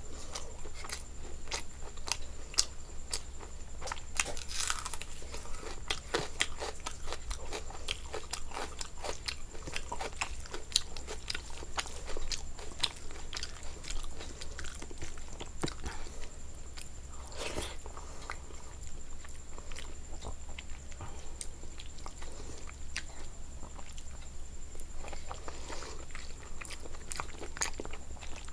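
A person chewing and biting food close to the microphone, with many small irregular crunches and mouth clicks and a few louder bites.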